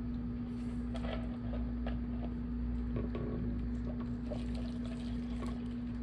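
Steamed blue crab being picked apart by hand: scattered faint cracks and clicks of shell, over a steady low hum.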